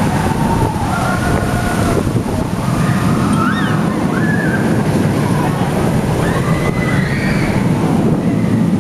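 Suspended looping roller coaster train running through its steel track, a loud steady rushing roar with wind buffeting the microphone. High wavering voices rise and fall over it several times.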